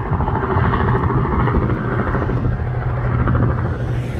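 Robinson R44 helicopter flying past, its two-bladed main rotor beating and its six-cylinder Lycoming piston engine running in a steady drone.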